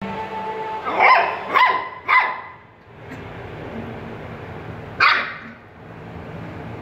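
Labrador retriever puppies barking: three high, sharp yaps in quick succession about a second in, then one more about five seconds in.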